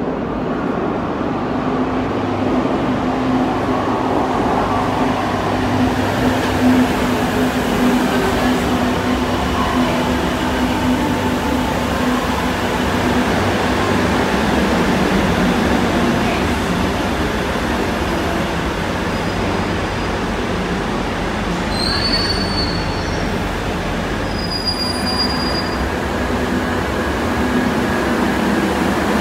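Madrid Metro 2000-series train moving along an underground station platform: a steady rumble of wheels and motors echoing in the station, with short high wheel squeals twice near the end.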